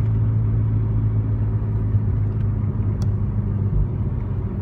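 A VW MK6 Golf GTI's turbocharged 2.0-litre four-cylinder running steadily while driving, a low engine drone with road rumble, heard from inside the cabin. The pitch shifts up slightly about two seconds in, with no sharp rev.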